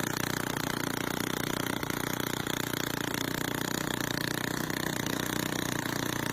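Small engine mounted on the front of a motorcycle running steadily at idle, spinning a wooden propeller.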